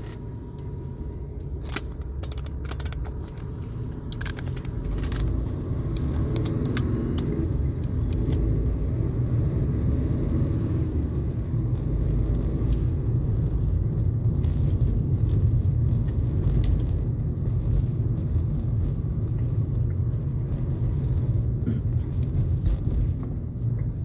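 Car cabin noise while driving: a steady rumble of engine and tyres on the road, with light rattling clicks in the first several seconds. The rumble grows louder over the first few seconds, then holds steady.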